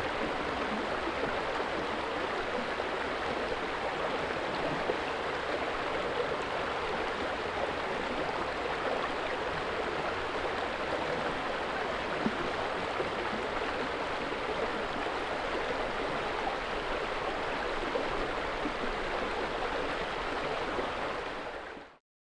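Steady rushing of running water that fades out to silence near the end.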